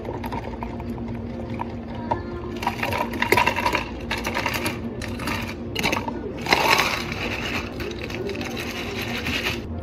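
Ice cubes clattering as they are scooped and dropped into plastic cups, in several bursts about two and a half, four and six and a half seconds in, over a steady background hum.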